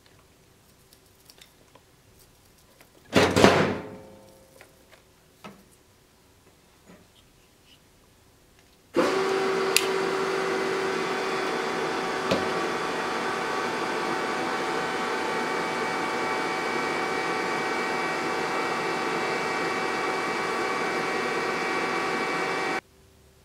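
A motor-driven machine runs steadily with a fan-like rush and a few held tones, switching on abruptly and cutting off suddenly. Earlier there is a single brief loud knock or scrape and a few faint ticks.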